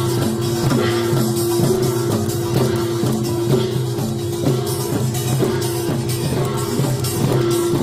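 Korean pungmul buk drums beaten with sticks in a lively rhythm, over music carrying a held, wavering melody line.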